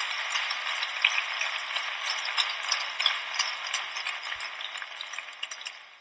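Arena crowd applauding and cheering, steadily dying away to scattered individual claps.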